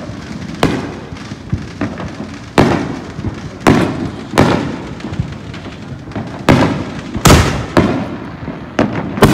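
Fireworks going off across the neighbourhood: about ten sharp bangs at uneven intervals, each trailing off in an echo, with the loudest about seven seconds in and at the very end.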